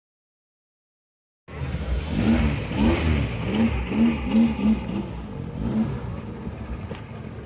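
Silence for about a second and a half, then a car engine revved in a string of short blips, each rising and falling in pitch, over a steady rumble.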